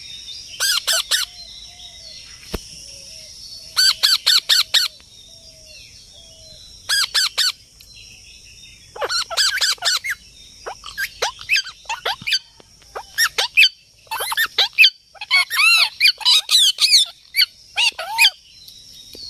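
Parrots calling in quick bursts of several high pitched squawks, a burst every second or two, with a few fainter lower calls between the bursts in the first few seconds.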